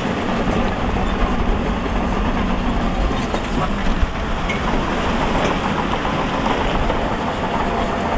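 Shantui DH17C2 bulldozer's diesel engine running steadily under load as its blade pushes a heap of rock and soil.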